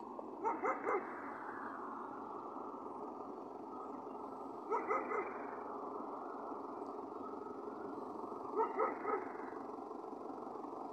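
A dog barking in short runs of three quick barks, about every four seconds, over a steady background noise.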